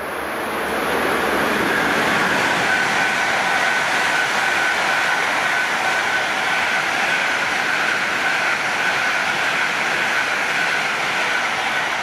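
E5-series shinkansen passing through the station at speed without stopping: a loud rushing noise that builds over the first couple of seconds, holds steady with a high whine running through it, and starts to die away near the end.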